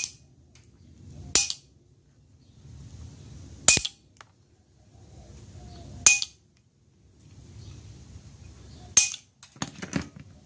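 Lever-action track cutter snipping through wall-upholstery fabric track: a sharp snap with each cut, five of them about two seconds apart, then a few lighter clicks near the end.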